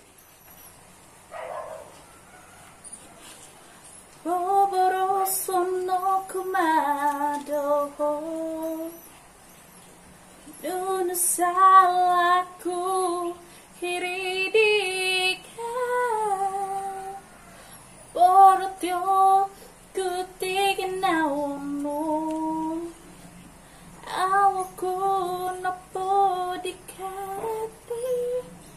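A woman singing a melody without accompaniment, in four phrases of a few seconds each with short pauses between, holding and sliding between notes.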